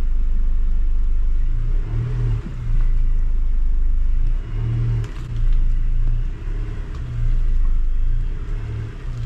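Car engine running at low speed under load as it slowly tows a small tractor, swelling and easing in repeated surges of throttle.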